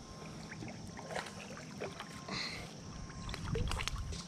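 Shallow river water splashing and sloshing close to the microphone, with scattered small clicks and knocks.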